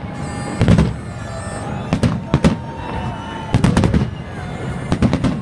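Aerial fireworks shells bursting overhead: loud bangs in quick clusters, several close together just past the middle of the clip, with more near the start and end.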